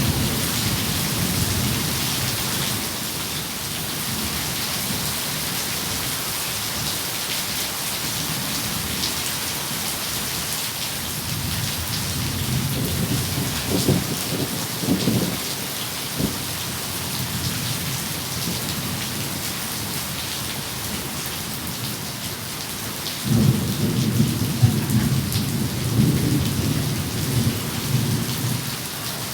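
Steady heavy rain with rolling thunder. The rumbles fade out early, return briefly in the middle and come back stronger for the last few seconds.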